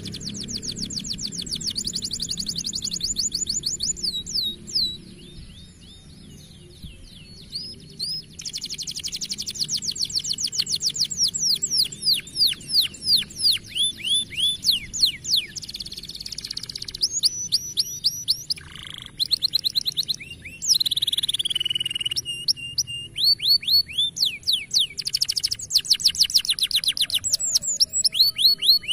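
Domestic canary singing: long, rapid trills of repeated down-slurred notes, broken by short pauses about five seconds in and again past the middle.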